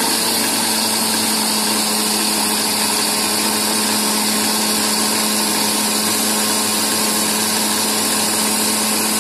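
Preethi mixer grinder's motor running steadily with a constant hum, its steel jar grinding soaked chana dal and toor dal.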